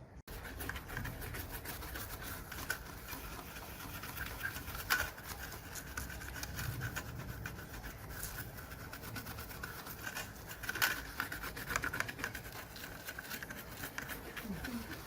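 Brush scrubbing a circuit board with cleaning solvent: a continuous fine scratchy rubbing, with a few louder strokes.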